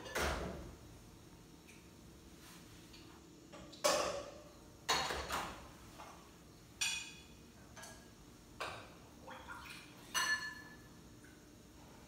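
Dishes and utensils clinking and clattering as they are handled and set down on a kitchen counter: about half a dozen sharp knocks, a few with a brief ring.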